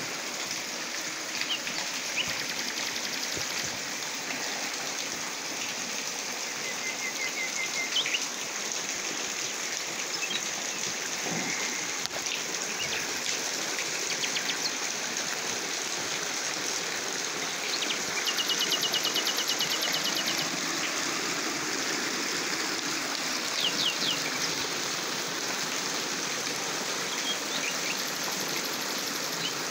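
Small waterfall and stream running steadily over rock, with birds chirping now and then and a rapid trill about eighteen seconds in.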